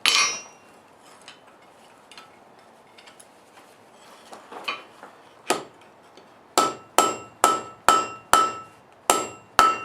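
Hand hammer forging steel on an anvil, each strike with a short metallic ring. One blow at the start, a pause of about four seconds, then two more blows and a steady run of about two strikes a second through the last few seconds.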